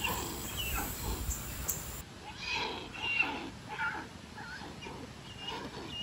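Young hornbills calling: a scatter of short, irregular calls, some of them brief high squeaks.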